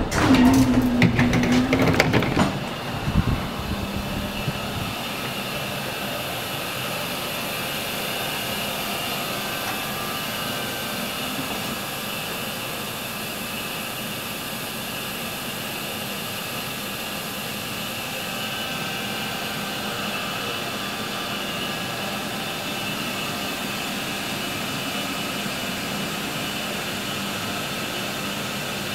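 A tram door opening after its button is pressed, with clicks and a short whirring in the first two seconds or so. Then the steady hum and hiss of a standing M8C light-rail car's running equipment.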